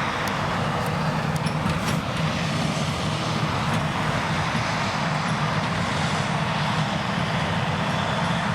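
Krone Big X 1100 self-propelled forage harvester working under full load, its V12 engine and chopping drum running steadily as it cuts triticale.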